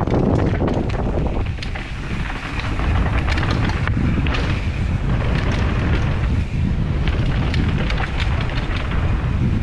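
Wind buffeting the microphone of a mountain bike riding fast downhill, with the bike's chain and frame rattling and clacking in many sharp clicks over rough ground.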